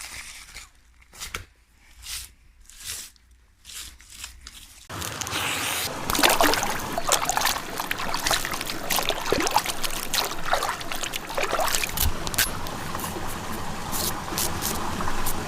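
Crisp crunching strokes, a little under a second apart. About five seconds in, these give way suddenly to a steady trickling, sloshing water sound with many small clicks and splashes.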